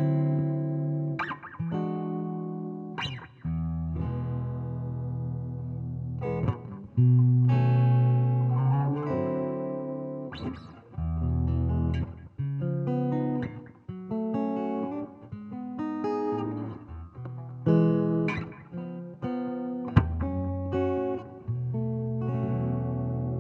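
Electric guitar played through an amp: a loose run of picked notes and strummed chords, each struck sharply and left to ring.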